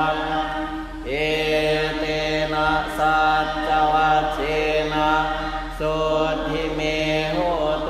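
Buddhist monks and laypeople chanting Pali verses in unison. The syllables are long and drawn out on a steady pitch, with the nearest monk's voice the clearest and brief breaks between phrases.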